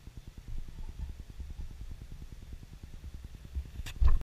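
Lighter flame burning close to the microphone: a low fluttering rumble, with a sharp click and a louder burst as the flame flares up near the end, then the sound cuts off suddenly.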